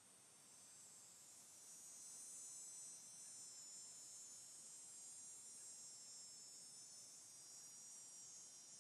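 Cicada singing: a steady, high-pitched buzz.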